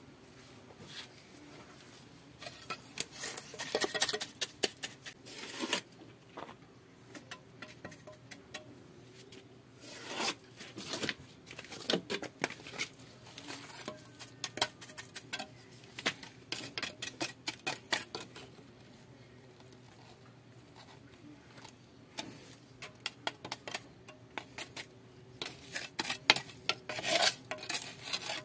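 Steel trowel scraping and clinking against cement mortar as it packs and smooths it into a hole in a concrete wall: irregular strokes, with a quieter stretch of a few seconds about two-thirds of the way in.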